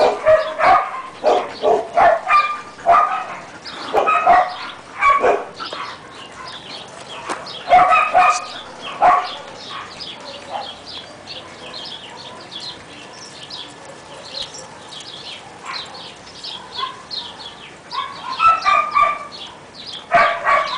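Huskies barking and yipping in quick runs of short, high calls, loudest in the first nine seconds and again near the end, with fainter high yips in between.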